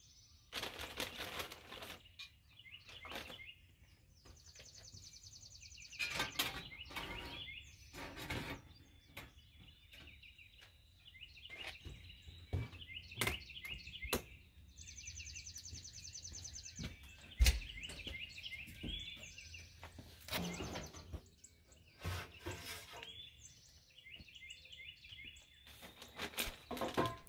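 Scattered knocks and clicks of metal smoker trays and doors being handled as hickory wood chips are loaded. Songbirds sing repeated high trills in the background.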